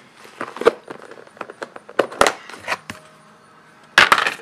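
Plastic takeout container and food being handled: scattered sharp clicks and crackles, then a louder clatter about four seconds in.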